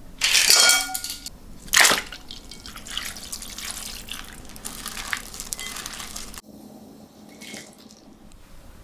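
Water splashing in a glass bowl, with a sharper splash just before two seconds. Then a thin stream of sauce pouring over shrimp in a glass bowl, with small clicks, cut off abruptly about six and a half seconds in.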